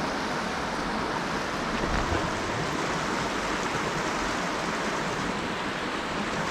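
Creek water running steadily over a riffle, an even rushing noise.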